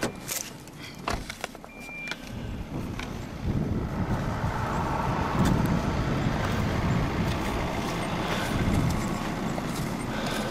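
Snow being brushed and pushed off a snow-covered car: an uneven, scraping rush that sets in about three seconds in, after a few light clicks.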